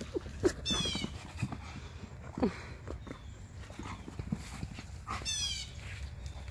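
Alaskan Malamute and Siberian Husky play-wrestling, with short play growls and grumbles, loudest about half a second in and again about two and a half seconds in. A high trill sounds twice in the background.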